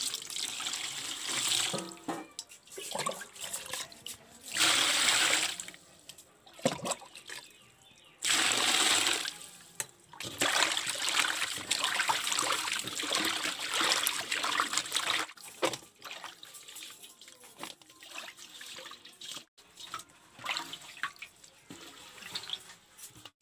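Water poured from a steel pot into an aluminium basin of small tengra catfish, in three loud splashing pours over the first ten seconds, then hands swishing and rubbing the fish in the water to wash them. The splashing goes on for several seconds, then dies down to quieter, broken sloshing near the end.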